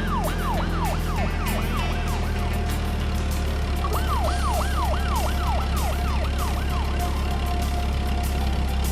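Electronic siren sound: a quick falling whoop repeated about three times a second, in two runs, the second starting about four seconds in. Under it is a steady low hum.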